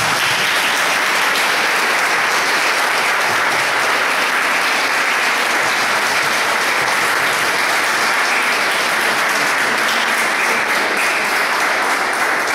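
Audience applauding: dense, steady clapping from a roomful of people.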